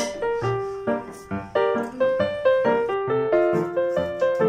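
Background piano music: a melody of separate, quickly fading notes, a few per second, over a lower accompaniment.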